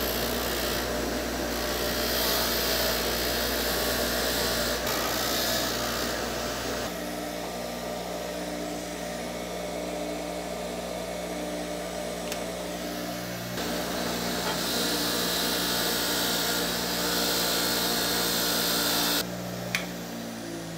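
Bench grinder running with a wire wheel, a rusty ball-peen hammer head pressed against it so that the wire brushing on the steel comes and goes as a high hiss over the steady motor hum, cleaning the rust off the head. Near the end the sound drops, with a short click.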